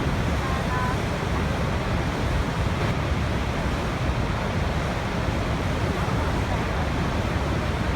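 Waterfall: water falling and rushing at a steady, even level. There is a short, faint high chirp about half a second in.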